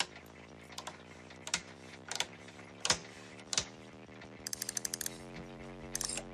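Heavy toggle switches on an old amplifier's control panel snapped on one after another, sharp clicks about two-thirds of a second apart. About four and a half seconds in comes a quick run of ratcheting clicks as the Variac autotransformer dial is turned up. A faint steady electrical hum runs underneath.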